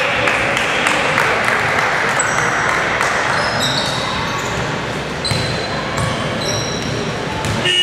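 Basketball game sounds on a hardwood court: the ball bouncing and sneakers giving short high squeaks at several points, with voices in the hall.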